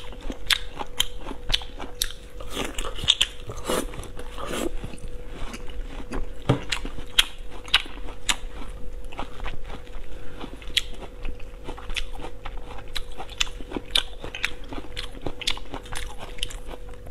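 Close-up eating sounds: wet chewing with many small sharp crunches as raw beef with crisp shredded white pear is bitten and chewed.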